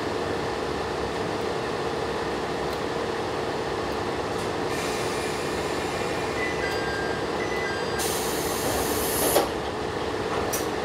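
Diesel railcar standing at a station, heard from inside the car: a steady engine hum under even noise. About eight seconds in, a loud hiss rises and ends in a sharp clack.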